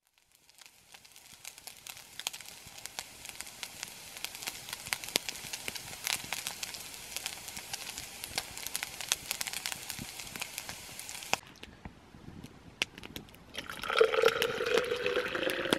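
Food sizzling in a frying pan on a grill over a small campfire, a steady hiss with many sharp crackles that cuts off about eleven seconds in. Near the end, hot liquid is poured from a small pot into a plastic cup.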